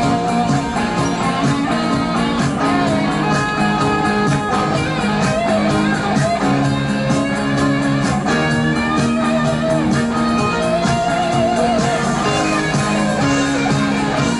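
Rock song with guitar and a steady beat.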